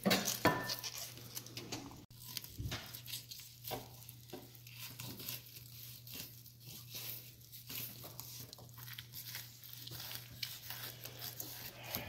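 Fillet knife cutting a redfish on a bamboo cutting board: irregular short scraping and tearing strokes as the blade slices along the bones and through the flesh and skin. A steady low hum runs underneath.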